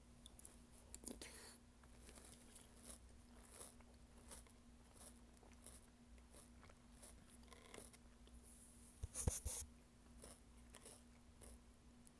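Faint crunching and chewing of small toast-square cereal in plant milk, with light clicks of a metal spoon in a plastic bowl and a louder burst of crunches about nine seconds in. A faint steady hum runs underneath.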